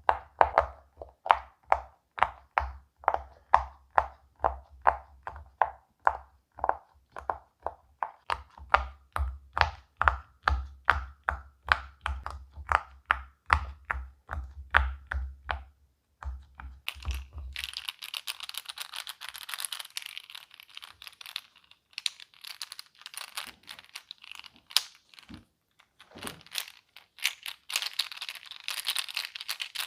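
Bubbles of a silicone pop-it fidget toy being pressed one after another, a steady run of soft pops about three a second. About halfway through the pops stop and give way to crinkling and rustling with a few sharp clicks.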